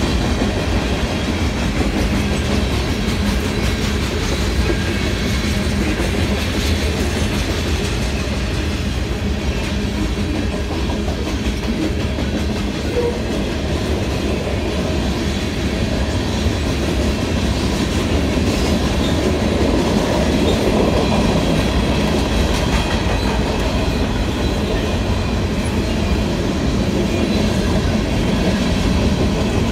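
Freight cars of a passing manifest train, steel wheels rolling steadily over the rails at speed.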